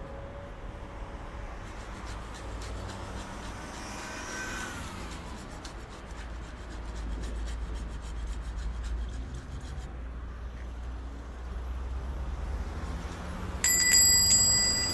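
Low, steady rumble of street ambience, like distant traffic. Near the end a sudden bright ringing chime with several held high tones starts and keeps ringing; it is the loudest sound.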